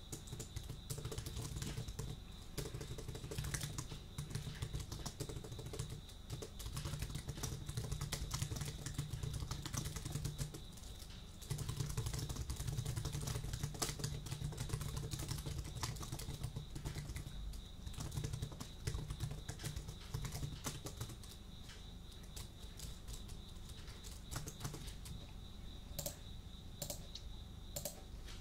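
Computer keyboard typing, fast and continuous keystroke clicks recorded close on a binaural microphone, with a steady high-pitched tone running beneath it.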